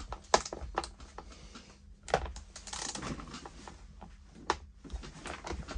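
Socket ratchet clicking in short, irregular runs of sharp clicks as it undoes a nut on a chainsaw's bar cover.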